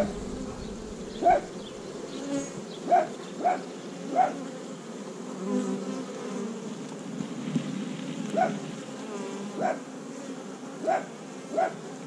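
Honey bees buzzing steadily around an opened hive as a bee-covered brood frame is lifted out, a continuous low hum. About nine short, sharp, louder notes stand out over the hum at irregular intervals.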